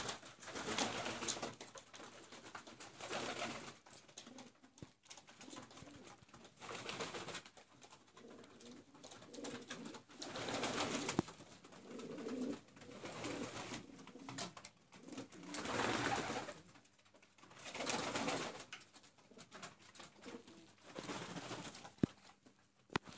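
Silesian shield pigeons cooing in a series of separate coos every two to three seconds, with a sharp click near the end.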